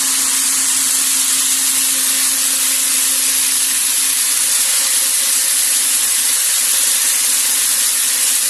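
Hazelnut bagging machine running: a steady, loud hiss with a low hum under it that fades out about halfway through.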